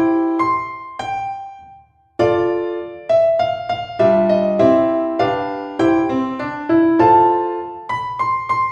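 Background piano music: a gentle melody of struck, fading notes with chords, broken by a brief pause about two seconds in.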